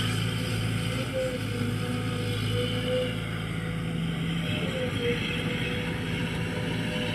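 JCB JS200SC excavator's diesel engine running steadily while the machine swings its boom round, with a slightly wavering higher whine over the engine note.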